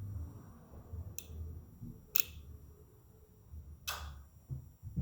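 Three sharp, irregularly spaced clicks from the 2005 Yamaha R6's electrics with the key on and the kill switch worked, over a faint low rumble; the owner wonders whether they come from the fuel relay.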